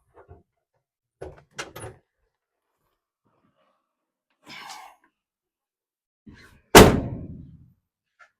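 An old truck's door slamming shut about two-thirds of the way in: one loud bang with a short ringing tail. A few lighter clicks and knocks and a brief rustle come before it.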